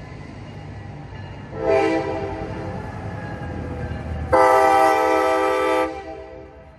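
Diesel locomotive horn from the lead CSX GP38-3 sounding two blasts over the low rumble of its engine: a short blast about one and a half seconds in, then a longer, louder blast lasting about a second and a half near the end.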